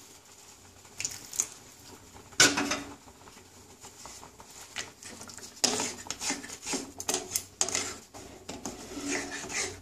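Wooden spatula stirring chicken curry in a pan, scraping and knocking against the pan in irregular strokes. One loud knock comes about two and a half seconds in, and a quick run of scrapes from about six seconds on.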